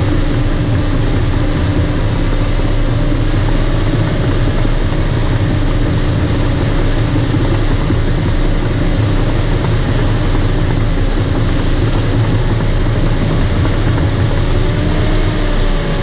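Bulldozer's diesel engine running steadily at constant revs with a heavy low rumble while the dozer strips topsoil; the pitch dips slightly near the end.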